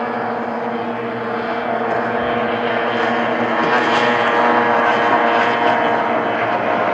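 Racing outboard engine on a hydroplane or runabout running flat out at a steady high pitch, growing louder toward the middle as the boat comes closer.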